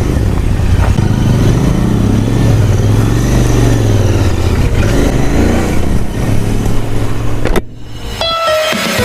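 Royal Enfield Interceptor 650's parallel-twin engine running under way, its pitch rising and falling as the revs change. About seven and a half seconds in it cuts off abruptly, and music starts just before the end.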